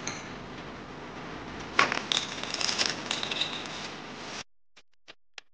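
Dry fettuccine strands dropped into a pot of water, clattering and ticking against the pot for a second or two over a steady hiss. The sound cuts off sharply about four seconds in, leaving a few faint ticks.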